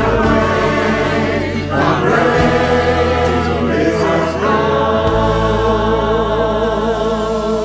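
Virtual choir of men and women singing a worship song in parts over a low accompaniment. The final chord is held long with vibrato and stops near the end.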